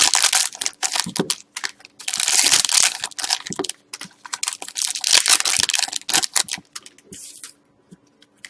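Hockey card pack wrappers being torn open and crinkled by hand: a string of crackly rustles, with two longer stretches of crinkling about two and five seconds in, fading to a few small ticks near the end.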